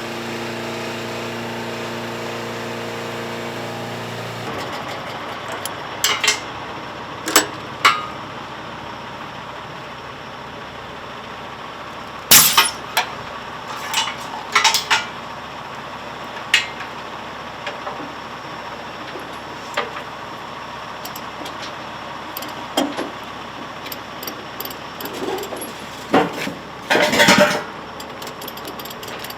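A diesel engine running steadily, then a lower rumble broken by a run of sharp metal clanks and clinks, a dense cluster of them near the end.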